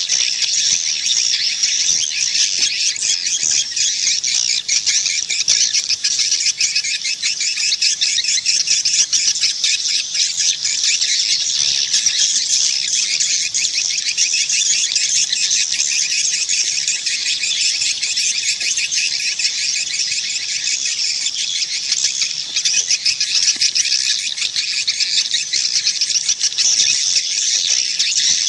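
Swiftlets twittering in a dense, continuous chorus of rapid high chirps. It is a swiftlet call recording, the kind played to draw swiftlets into a nesting house.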